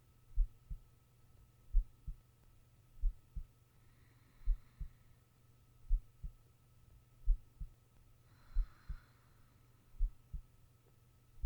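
Heartbeat of a sleeping person: slow, regular lub-dub pairs of low thumps about every second and a half, eight in all. Soft breaths come in twice, around four and eight and a half seconds in, over a faint steady hum.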